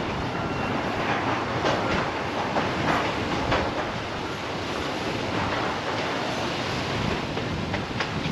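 Narrow-gauge acid tank wagons rolling past steadily: a continuous rush of wheels on rail, with wheel clacks and scattered sharp clicks at uneven times.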